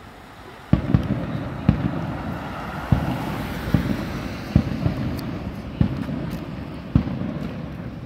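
Fireworks display: a run of sharp bangs, about one a second, starting under a second in, with continuous noise between them.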